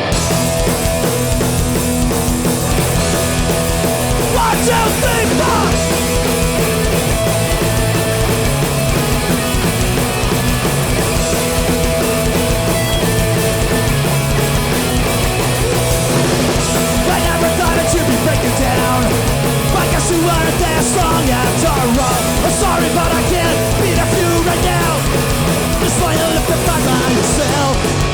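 Hardcore punk band playing live at full volume: distorted electric guitars, bass and drums, all kicking in at once at the start.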